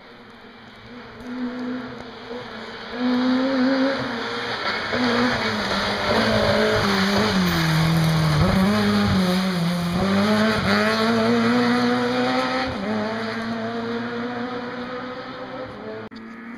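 Rally car engine coming up the stage at speed, revs climbing through the gears; the revs fall about eight seconds in as it slows for the bend, then climb again as it accelerates away and fades out near the end.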